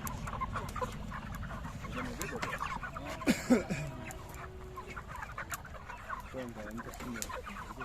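A flock of chickens clucking and squawking, with a couple of louder squawks about three seconds in.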